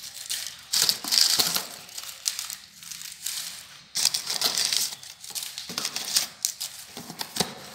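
Crumpled paper packing rustling and crinkling in irregular bursts as it is pulled out of a cardboard box, with the box's cardboard flaps being handled. The bursts are loudest about a second in and again about four seconds in.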